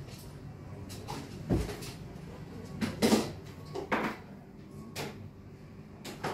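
A series of short knocks and clatters, about one a second, the loudest a quick cluster about three seconds in, like objects being handled and set down.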